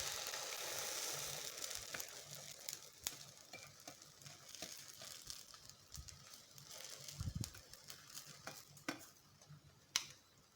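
Beaten-egg omelette mixture sizzling in a hot oiled frying pan just after being poured in, the hiss loudest at first and fading as it settles. A few sharp ticks and pops come through the sizzle.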